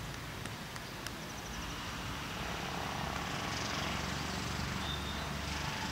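Outdoor background noise on an open ground: a low steady rumble, with a few soft clicks in the first second, a short run of high ticks about a second and a half in, and a brief high chirp near the end.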